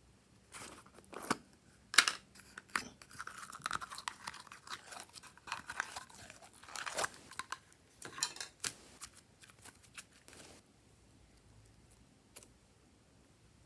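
Glossy slime being mixed and squeezed by hand, giving a dense run of sticky crackles and clicks for about ten seconds, then one last click near the end.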